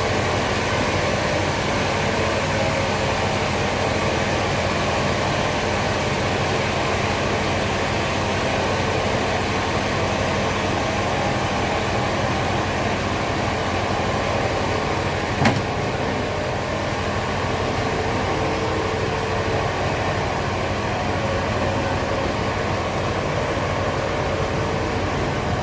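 Steady running noise of sawmill machinery, with one sharp knock about two-thirds of the way through.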